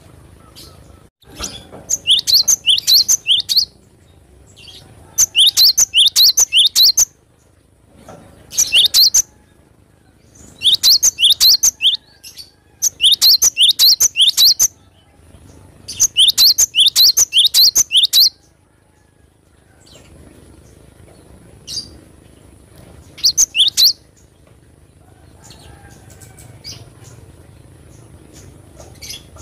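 Cinereous tit (gelatik batu) singing loud phrases of rapid, repeated sharp high notes, each phrase lasting one to two seconds and coming every few seconds. The phrases grow sparser and shorter in the last few seconds.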